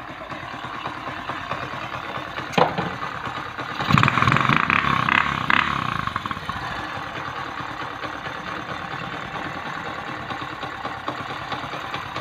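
Small motorcycle engine, freshly rebuilt with a 110 cc cylinder kit, running at idle just after being started, with a single click about two and a half seconds in and a brief louder stretch from about four to six seconds, as if revved.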